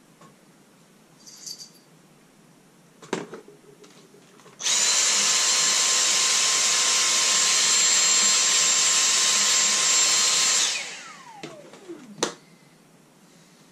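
Dyson cordless stick vacuum running for about six seconds: a steady rush of air over a constant high motor whine, then a falling whine as it is released and the motor winds down. A sharp click comes shortly before it starts and another after it stops.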